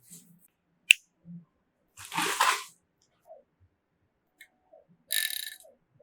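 A sharp click, then two short rustling, scraping bursts a few seconds apart: PC components being handled and fitted during assembly.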